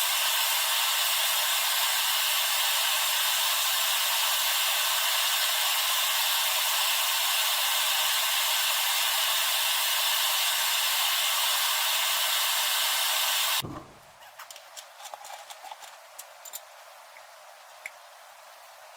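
Steady whirring hiss of a wood lathe running in the shop, which cuts off suddenly about three-quarters of the way through. A few faint clicks and taps follow.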